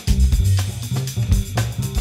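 Background music with a drum-kit beat, bass and guitar.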